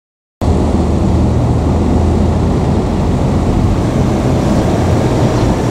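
Steady low rumble of a running vehicle with a droning low hum, cutting in suddenly just after the start.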